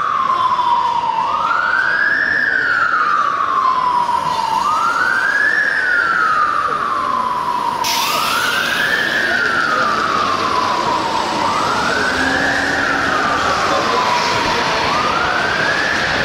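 Police motorcycle siren on a slow wail, from a Metropolitan Police BMW F750: the tone climbs quickly and then falls slowly, repeating about every three and a half seconds. Steady traffic noise underneath.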